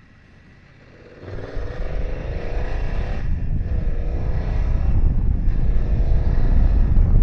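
BMW F900XR parallel-twin motorcycle engine pulling away and accelerating, its pitch rising, with brief breaks for two gear changes. Heavy wind rumble on the helmet microphone builds as the bike gathers speed.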